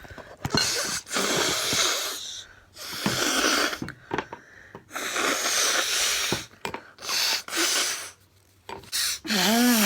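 A person's loud, breathy huffs and wheezes, four in a row of about a second each, followed near the end by a short hummed voice sound that rises and falls.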